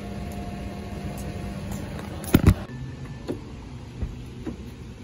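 A car's steady low hum, with a car door thudding shut about two and a half seconds in, a quick double knock, followed by a few lighter taps.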